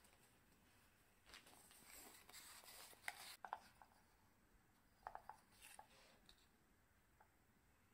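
Quiet handling sounds as a small plastic cup is drawn out of a fabric drawstring pouch: soft fabric and paper rustling for about two seconds, ending in a few sharp clicks. A few lighter clicks and rustles follow about five seconds in, as the cup's paper sleeve is slid off.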